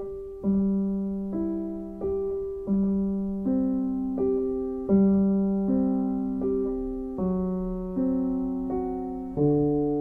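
Slow, gentle piano music, a note or chord struck a little more than once a second, each fading before the next.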